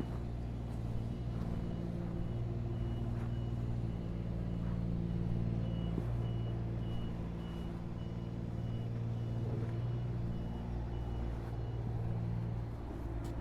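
A steady low mechanical hum with a high electronic beep repeating in short, even pulses, like a reversing alarm; the beeping stops about a second before the end.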